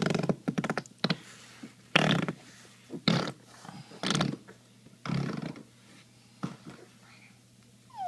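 A baby blowing raspberries against a glass tabletop: a series of short, buzzy lip-flapping bursts, roughly one a second, some in quick doubles.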